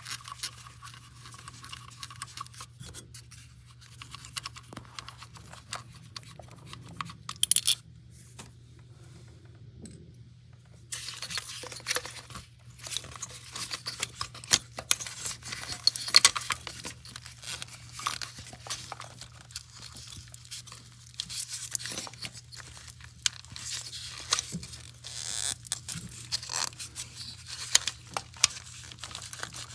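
Irregular clicks, scrapes and rattles of hand tools and engine parts being handled, over a steady low hum.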